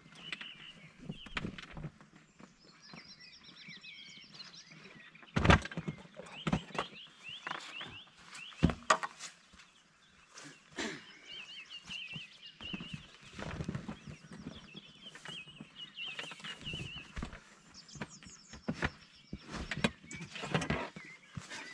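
Stiffening floor panels of an inflatable boat being worked loose and pulled out: scattered knocks and clatter, with two sharper knocks about five and a half and nine seconds in. Small birds chirp and trill in the background.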